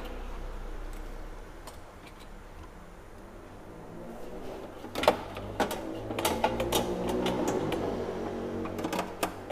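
Metal wire rack of an air fryer oven clinking and clicking as pieces of pork belly are set on it and shifted. The irregular clicks start about five seconds in, over a low steady hum.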